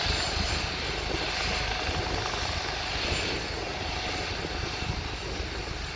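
Helicopter running on the ground with its big rotors turning, a steady engine and rotor noise while it waits to take off.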